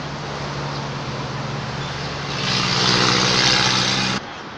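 A motor engine drones steadily with a hiss over it. It grows louder about halfway through, then cuts off suddenly shortly before the end.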